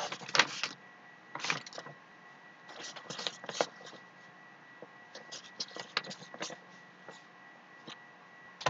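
A sheet of paper handled on a metal counter: scattered short rustles and taps, over a faint steady high tone.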